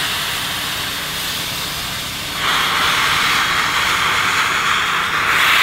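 1912 steam locomotive No. 2141 venting steam low at its front end: a steady hiss that grows clearly louder about two and a half seconds in.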